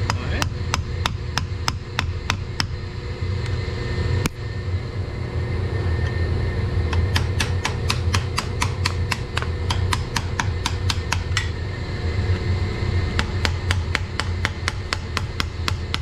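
Sharp metal-on-metal tapping: a steel screwdriver being struck to work loose a circulating pump from its piping. The taps come in three quick runs of several a second, with one harder single strike about four seconds in, over a steady low hum of running machinery.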